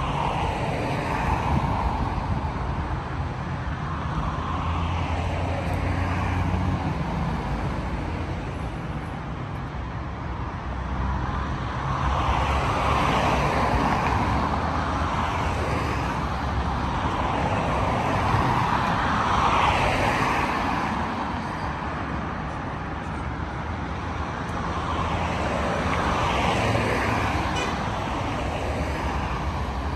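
Road traffic: a steady stream of cars passing, each swelling and fading over a few seconds, with about five louder passes.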